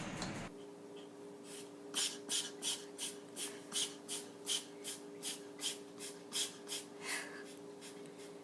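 A pet's quick, rhythmic breaths through the nose, about three a second, over a steady low hum. They start about two seconds in and stop near the end.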